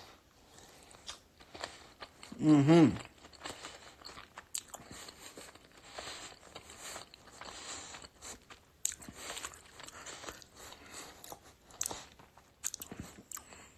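Close-up chewing, biting and wet lip smacking on sauce-soaked fried chicken wings, with a short hummed sound from the eater's voice about two and a half seconds in.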